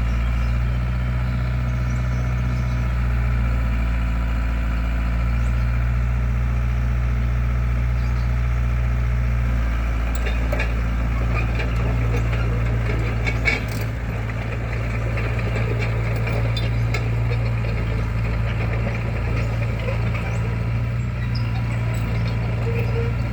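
Excavator's diesel engine running steadily, with scattered knocks about halfway through and one sharp knock among them.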